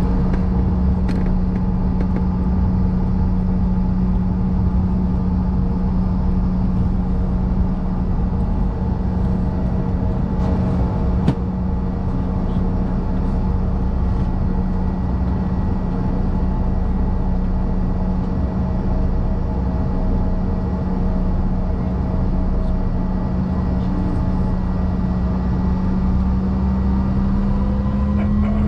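Cabin sound of a CRJ-550 regional jet on the ground, its rear-mounted General Electric CF34 turbofans running at idle: a steady hum over a low rumble. Near the end a rising whine begins as engine thrust increases.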